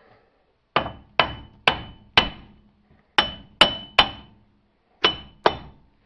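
Nine sharp hammer blows on metal, in quick groups of four, three and two, each with a brief metallic ring, knocking the seized front hub bearing loose from the steering knuckle.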